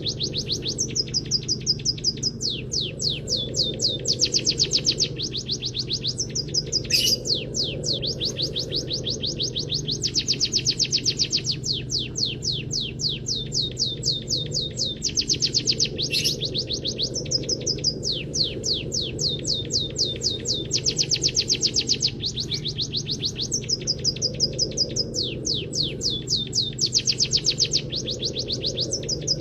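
A munia singing canary-style song: rapid high chirping trills in phrases of one to three seconds with short breaks between them, over a steady low hum.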